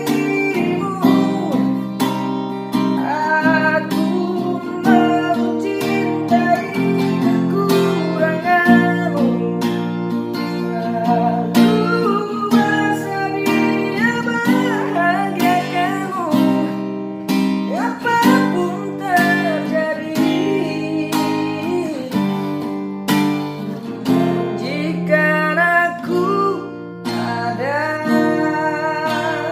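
A singer sings a slow melody over a strummed acoustic guitar. The voice is unprocessed, with no added effects.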